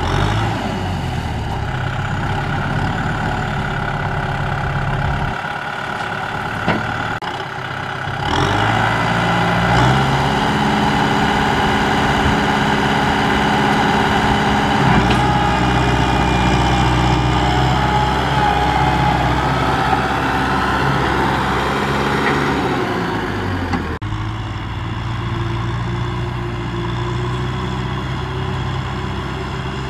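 Kubota M6040SU tractor's diesel engine running, rising in pitch and loudness about eight seconds in as it works under the load of a trailer of rice sacks through mud. It drops back abruptly to a lower, steady run about two-thirds of the way through.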